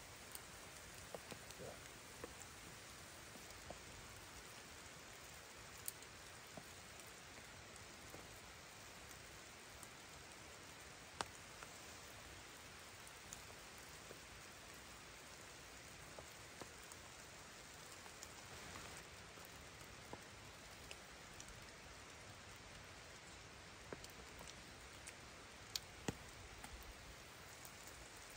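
Light rain falling: a faint, steady hiss with scattered single drops ticking at irregular intervals.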